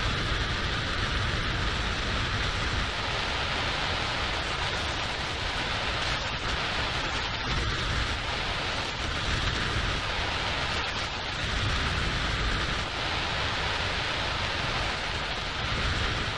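A steady, even rushing hiss with a faint steady tone running through it, at a constant level throughout.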